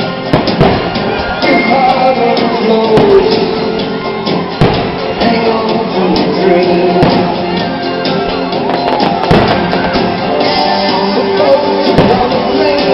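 Loud music with singing, cut by sharp fireworks bangs every few seconds, with crowd shouts.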